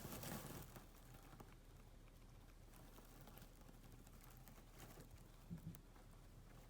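Near silence with faint rustling and light patter from a pet hamster moving about, a little louder in the first second, and two soft taps about five and a half seconds in.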